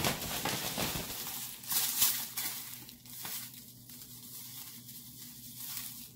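Thin plastic grocery bag crinkling and rustling as it is handled, loudest over the first two seconds or so with a sharp rustle about two seconds in, then softer.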